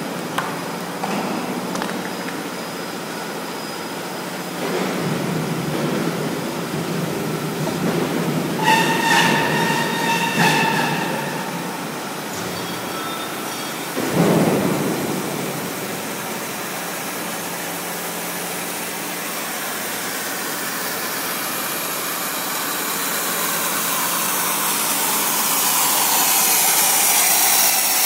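Double slat roll forming machine running, its forming rollers and drive giving a steady mechanical din. A short pitched metallic squeal comes about nine seconds in, a sharp thump about fourteen seconds in, and a hiss grows louder near the end.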